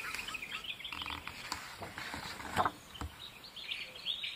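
Faint background jungle soundscape with birds chirping, and a picture book's page being turned, with a short rustle about two and a half seconds in.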